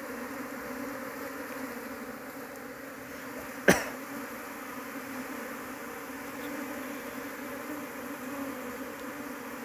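A disturbed colony of Asian honey bees (Apis cerana) buzzing steadily, a low even drone with a steady pitch. One sharp click a little under four seconds in.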